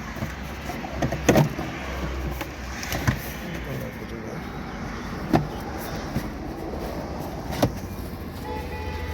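Scattered knocks and clicks of car parts being handled and fitted back in place, four of them sharper than the rest, over a low steady hum.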